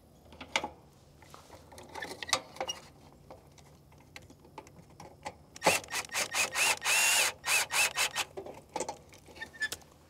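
Milwaukee cordless drill driving a screw into the condenser's sheet-metal panel to fix the new contactor in place, run in a series of short trigger bursts and one longer run, its motor whine rising and falling, until the screw is tight. Light clicks and rattles of the tool and parts being handled come before it.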